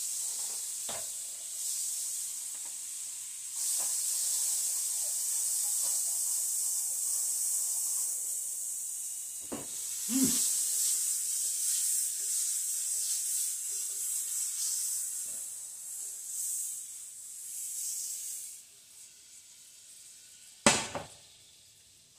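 Hamburger buns frying in melted butter in a skillet, with a steady sizzle and a few knocks. The sizzle dies away about three-quarters of the way through, and a sharp knock follows near the end.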